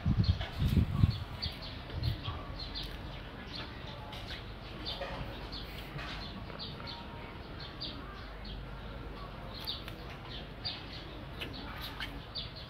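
Small birds chirping in the background, many short high chirps scattered throughout, with a few loud low puffs of noise in the first second.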